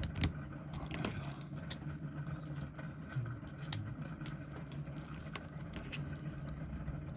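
Scattered small clicks and taps of watchmaker's tools on a watch case and movement, over a steady low hum.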